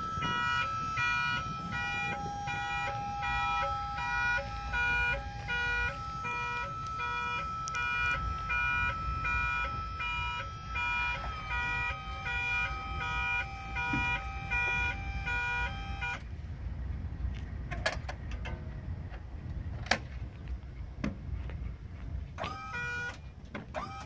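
Electronic warning beeper sounding a rapid repeating pattern of several-tone beeps, which cuts off suddenly about two-thirds of the way through. Then come a few sharp clicks and metal knocks and a short squeal as the cab of the Toyota Dyna fire truck is tilted forward.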